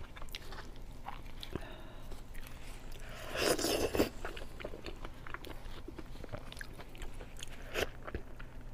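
Close-miked eating: a person biting and chewing chicken, with many small wet mouth clicks. There is a louder stretch of biting about three and a half seconds in.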